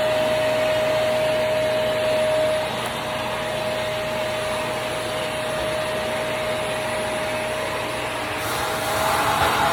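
Wet/dry vacuum cleaner running with a steady motor whine, sucking standing water out of a dishwasher that won't drain. About two and a half seconds in the level drops and the whine sinks slightly in pitch; near the end it grows louder and hissier as the whine rises again.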